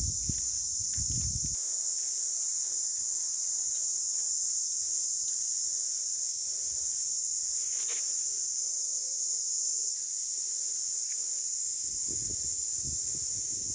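Steady high-pitched insect chorus, with low rumbles in the first second or so and again near the end.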